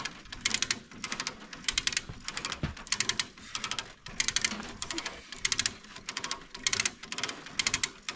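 A hand ratchet being worked in quick strokes: a run of sharp pawl clicks with each stroke, roughly one burst every half second.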